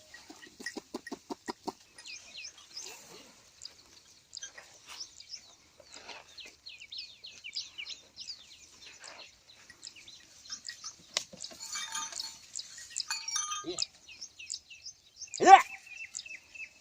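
Small birds chirping over and over in short, quick notes. A fast rattling run of pulses comes early, and a single loud short call near the end.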